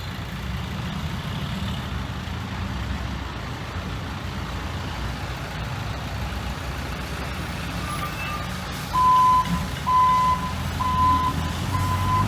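Heavy diesel construction machinery running steadily with a low rumble. From about nine seconds in, a reversing alarm beeps about once a second, the machine backing up.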